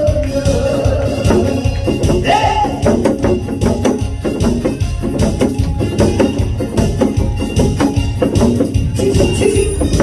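Instrumental break of a trot-style song: a backing track with a steady drum beat and tambourine, and a wavering melody line near the start and again about two seconds in.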